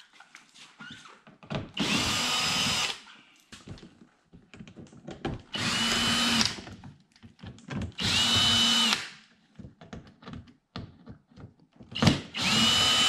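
Ryobi cordless drill/driver backing screws out of a car's plastic front lip in four short runs of about a second each. The motor whine rises as each run starts and then holds steady. Small clicks of handling come between the runs.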